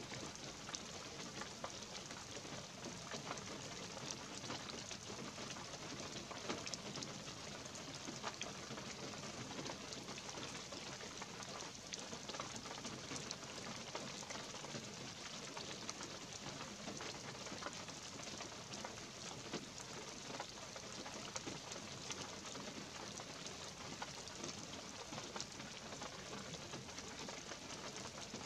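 Light rain falling on pine trees and a forest floor of fallen pine needles: a steady, even hiss sprinkled with many small drop ticks.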